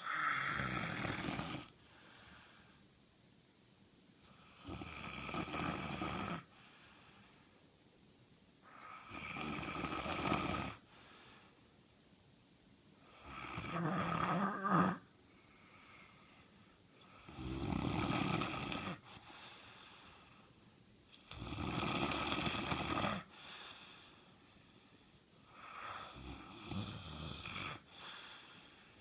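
A sleeping person snoring: seven rasping snores, each a second and a half to two seconds long, about every four seconds, with quieter breathing between them.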